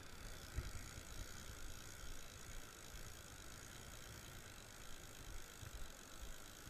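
Spinning reel being cranked in a steady retrieve, its gears giving a soft, even whir, over the rush of a mountain stream.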